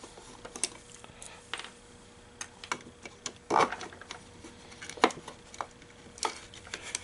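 Scattered small clicks and knocks of plastic and metal parts being handled as the rollers are pried out of an MEI bill validator's lower transport, with two louder knocks about three and a half and five seconds in.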